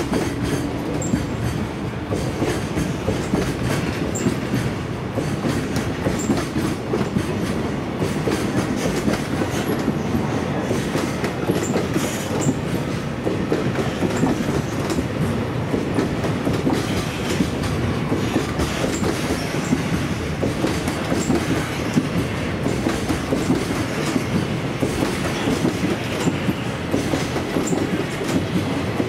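Container flatcars of a long freight train (Koki 104 and Koki 107 wagons) rolling steadily past, wheels clacking over the rail joints in a continuous rumble, with a few faint brief high wheel squeaks.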